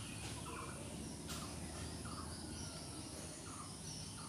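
Background animal chirping: short chirps repeating about every half to three quarters of a second, with higher chirps above them, over a low steady hum; one sharp click about a second in.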